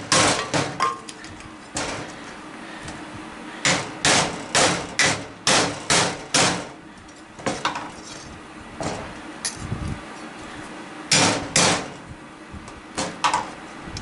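Hammer striking the rusty steel housing of a ceiling fan motor, a series of sharp metallic blows in bursts, driving the stuck metal housing loose.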